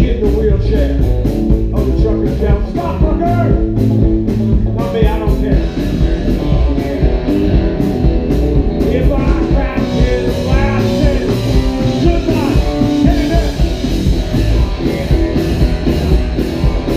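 A live rockabilly band playing loud: electric guitars, electric bass and a drum kit keeping a steady beat.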